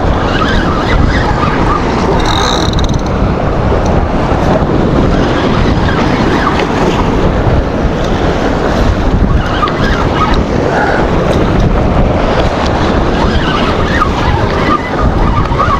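Strong wind buffeting the microphone over waves washing against jetty rocks, a steady noise throughout.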